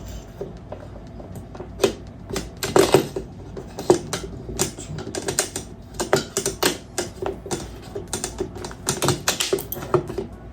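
Irregular clicks, taps and knocks of airsoft rifle parts being handled and fitted together as a rail section is mounted.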